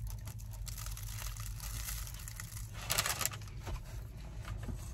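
A person biting into and chewing a mouthful of steak and cheese sub on a bread roll, close up, with a run of small crackling crunches and a louder crackle about three seconds in.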